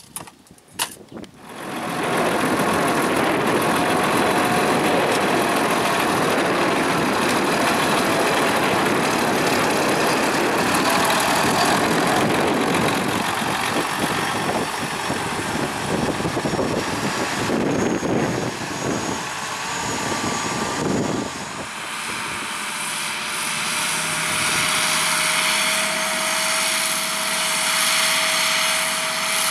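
Belarus MTZ 1221 tractor's diesel engine running loud and steady as it works with a Monosem NG3+ vacuum corn planter. About 21 seconds in the noise eases a little, and a steady whine carries over the engine after that.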